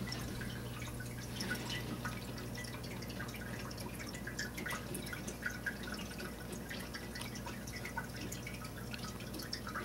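Aquarium water dripping and trickling in small irregular plinks over the steady low hum of the tank's filter pump.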